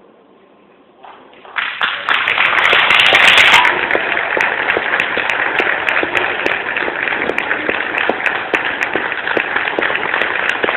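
Audience applauding: after a moment of quiet the clapping starts about a second and a half in, swells within a couple of seconds, then holds steady.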